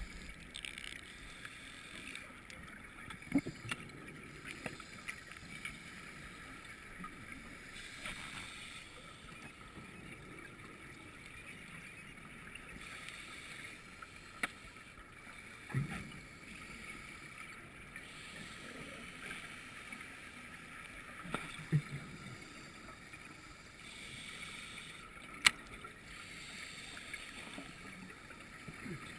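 Muffled underwater sound picked up by a dive camera in its housing: a steady faint hiss, with a few dull knocks and sharp clicks scattered through it.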